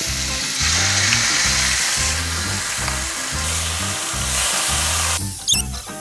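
Marinated beef slices sizzling in hot oil in a non-stick frying pan as they are tipped in and stirred with chopsticks; the sizzling drops away about five seconds in. Background music with a steady beat runs underneath.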